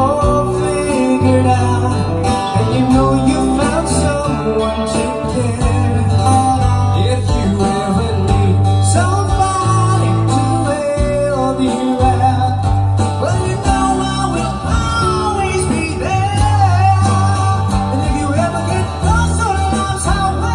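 Live rock band playing a power-ballad cover, with electric and acoustic guitars, electric bass and a drum kit.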